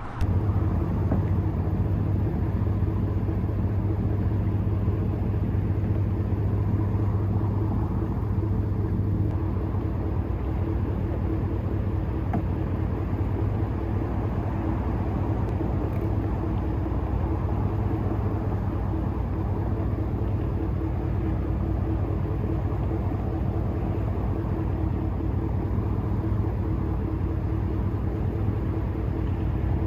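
A steady engine drone with a low hum, beginning abruptly and running evenly throughout, like a motor vehicle under way.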